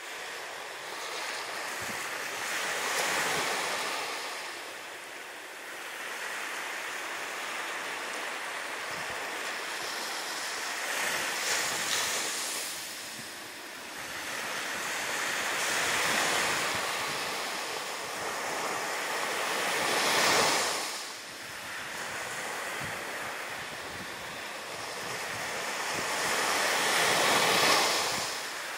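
Small waves breaking and washing up the beach, the surf swelling and fading in slow washes every few seconds.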